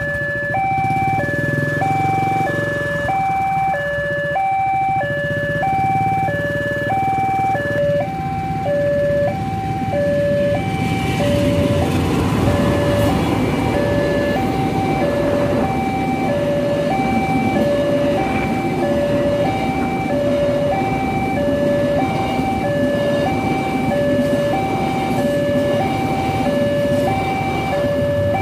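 Level-crossing electronic warning alarm sounding a steady two-tone high-low chime, about two tones a second. From about ten seconds in, a passenger train passes, its wheels rumbling on the rails under the alarm.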